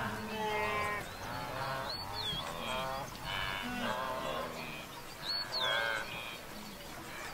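A wildebeest herd calling: many grunting, bleating calls overlapping one after another.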